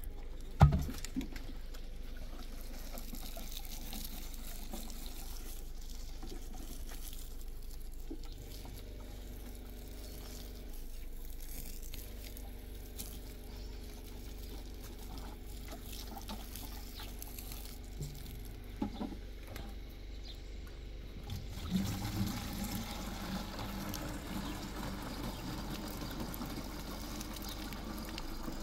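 Water running or pouring steadily, with one sharp loud knock about half a second in and a few lighter knocks later on.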